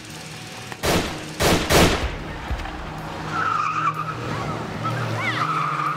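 Three loud gunshots in quick succession about a second in. A vehicle engine then starts to run, and its tyres squeal with a wavering high pitch as it speeds off.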